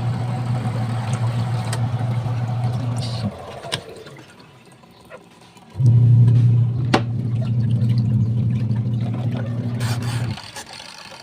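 Washing machine motor humming in stretches of a few seconds. It stops abruptly after about three seconds, restarts sharply near the six-second mark, and cuts out again near the end, like a wash cycle turning the agitator on and off. A few faint clicks fall in between.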